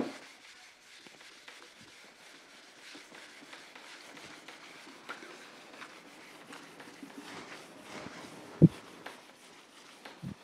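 Whiteboard duster wiping across a whiteboard in faint, uneven rubbing strokes, with a single dull thump late on.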